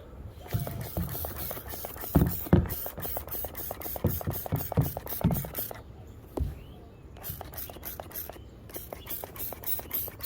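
Trigger spray bottle of Simple Green cleaner pumped rapidly, about four short spritzes a second with brief pauses, the bottle running low. A few dull knocks from handling come in the first half.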